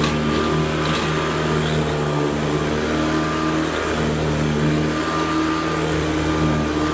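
Hoover Convertible U4003 upright vacuum cleaner running steadily on carpet, its motor tone shifting slightly now and then.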